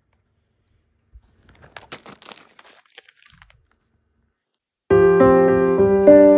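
Crinkling of a plastic pouch of throat tablets handled in the hand for a couple of seconds. Near the end, background music with piano-like chords starts suddenly and is much louder.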